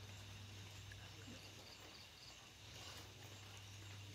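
Faint, steady hiss of light rain falling on a wet garden at night, with a steady low hum underneath.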